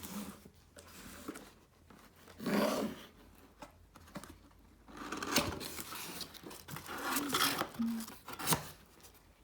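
A small toy robot vacuum's packaging being torn open and handled: plastic and paper rustling and tearing in bursts, with scattered clicks.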